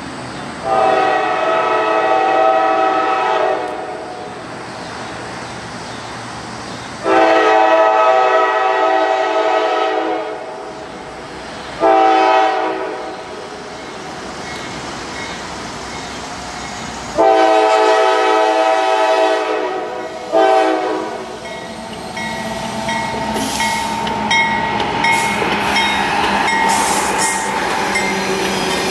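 Norfolk Southern locomotive air horn sounding the grade-crossing signal: two long blasts, a short one, then a long one. In the last several seconds the locomotives pass with rising engine and wheel noise and clatter.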